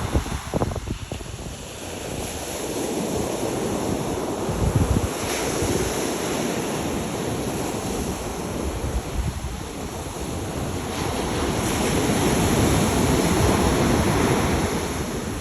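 Ocean surf washing onto a beach in a steady wash that swells louder near the end, with wind gusting on the microphone.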